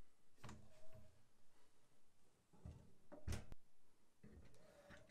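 A few faint knocks and clicks as an AR-style rifle is handled and set into a Tanosteel ProRack gun rack, the loudest about three seconds in.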